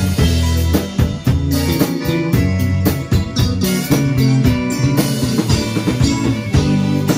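A small band playing live: drum kit with bass drum and snare keeping a steady beat, electric bass guitar, and a Korg Pa300 arranger keyboard.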